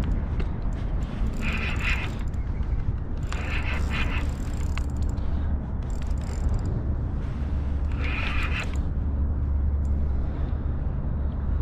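Fishing reel ratcheting in three short bursts while a hooked striped bass is being fought, over a steady low rumble of wind and water.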